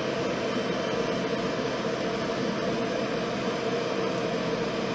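Forge blower running steadily, forcing air into a burning charcoal forge fire: an even rushing hum.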